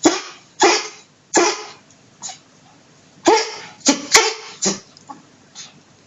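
A dog coughing in a fit: four coughs about half a second apart, a pause of about a second, then four or five more that grow fainter near the end.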